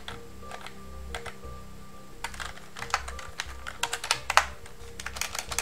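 Typing on a computer keyboard: a few scattered keystrokes, then a quick run of key clicks from about two seconds in.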